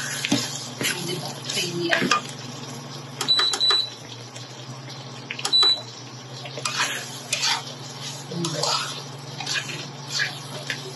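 Plastic spatula scraping and knocking against a nonstick pan at irregular intervals while stirring a thick creamy sauce, over a steady low hum.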